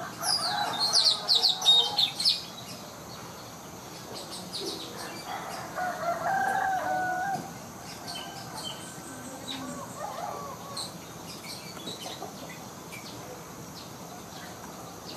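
Blue-rumped parrot (nuri tanau) calling: a run of rapid, shrill chirps in the first two seconds, then scattered softer chirps. A longer, lower, wavering call comes about six seconds in, with a shorter one near ten seconds.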